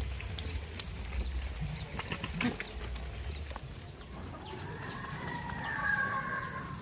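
Scattered clicks and knocks over a low rumble. About four seconds in, one long farm-animal call begins and holds for over two seconds, drifting slightly down in pitch.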